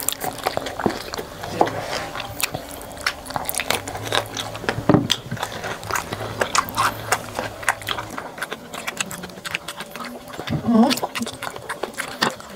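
Close-up eating sounds: instant noodles and fried food being bitten, chewed and slurped, heard as many small sharp mouth clicks. A low steady hum underneath stops about two-thirds of the way through.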